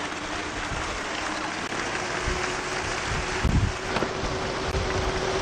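A small fishing boat under way: a steady rush of wind on the microphone and water, over a faint steady hum from the motor. A few dull knocks come in the second half.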